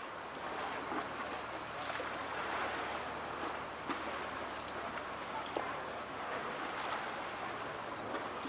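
Outdoor harbour ambience from a handheld camera's microphone: a steady wash of noise with a few faint clicks.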